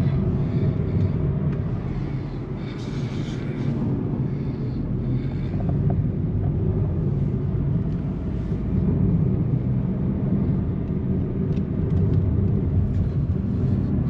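Steady engine and road rumble heard inside the cabin of a Honda Civic being driven.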